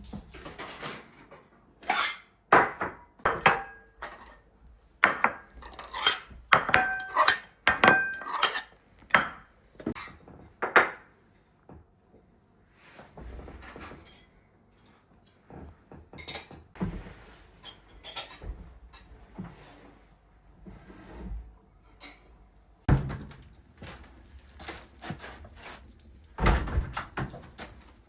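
Clinking and knocking of dishes, pots and cutlery being handled, some strikes ringing briefly. The sounds come thick and fast at first, thin out in the middle, and end with a couple of heavier thuds.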